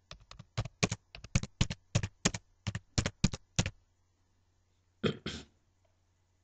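Computer keyboard typing, a quick run of about twenty keystrokes that stops after three and a half seconds. About five seconds in come two short, louder knocks.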